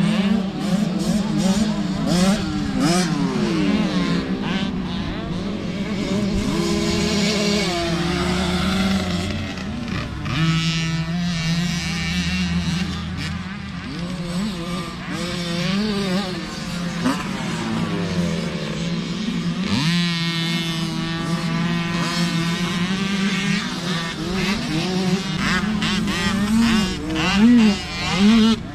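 Small two-stroke motocross bikes on a dirt track, their engines repeatedly revving up and dropping back as they ride, several overlapping at once, over a steady low drone.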